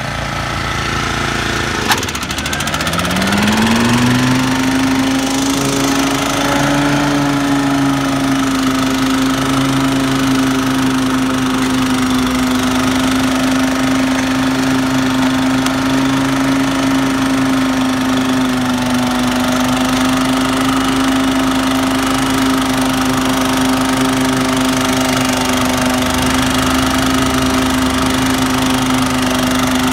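Toro TurfMaster 30-inch HDX walk-behind mower cutting long grass with side discharge. About two seconds in, the engine climbs in pitch as the mower is slowed to a lower ground speed and recovers from bogging down. It then runs at a steady pitch.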